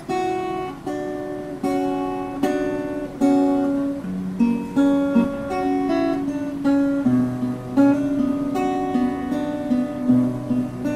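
Solo guitar playing a song's introduction: chords struck about once a second at first, then picked melody notes over held bass notes.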